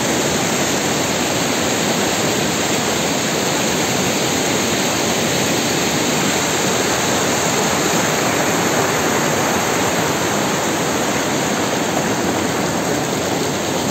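Mountain river rushing all around, a very loud, steady sound of running water with no break.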